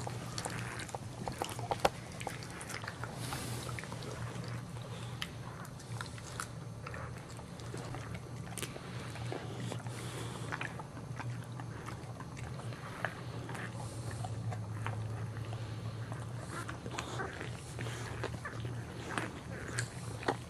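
Boxer mother licking and mouthing her wet newborn puppy, cleaning it just after birth: a run of irregular wet licks, smacks and chewing clicks. A steady low hum runs underneath.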